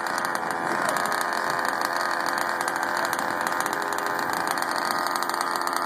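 Gas-powered FG RC drag car's small two-stroke engine idling steadily with the car at a standstill.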